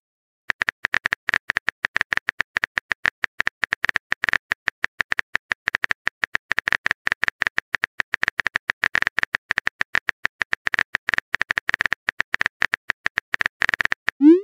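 Smartphone keyboard typing sound effect: a rapid, irregular stream of short identical key-tap clicks, starting about half a second in, as a message is typed out.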